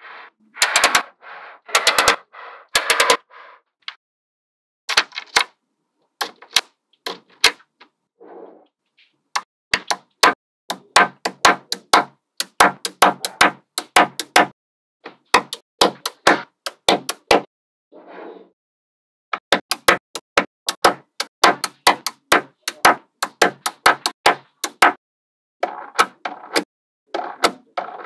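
Small magnetic balls clicking and snapping together in quick runs of sharp clicks, with a few short rattles between, as pieces are being assembled.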